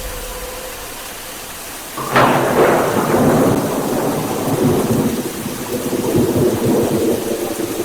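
A thunderclap breaks about two seconds in, over steady rain, and rumbles on with the downpour.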